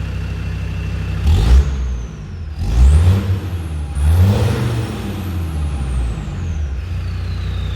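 Land Rover Discovery 2's Td5 five-cylinder turbodiesel idling through a newly fitted performance cat-back exhaust, blipped three times and dropping back to idle between, with a deeper, beefier exhaust note than stock. A high whistle rises with each blip and slowly falls away.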